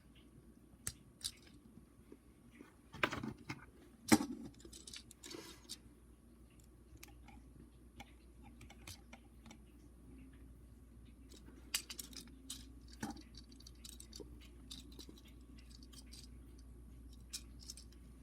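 Hard plastic toy parts of a Transformers Cyberverse Ratchet figure and its Blizzard Breaker armor being handled and pegged together: scattered sharp clicks and small rattles, the loudest snap about four seconds in.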